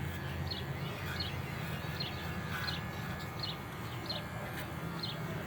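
Cordless electric hair clippers running with a steady low hum while shaving a dog's coat. A small bird chirps briefly over it, about once every second.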